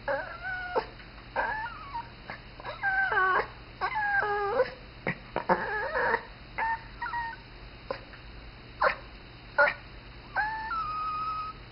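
Dog whining and squealing: a string of high, wavering whines, some gliding or stepping down in pitch, broken by short sharp squeaks.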